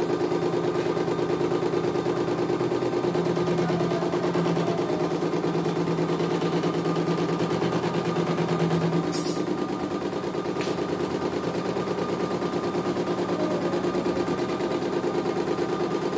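CNY E900 portable embroidery machine stitching a design: a rapid, steady rattle of needle strokes over the hum of its motor, with two brief sharp clicks near the middle.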